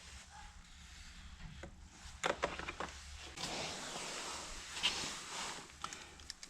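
Hand tools working the T30 Torx screws behind a car's steering wheel: a cluster of sharp clicks, then a stretch of rasping, with a few more clicks near the end.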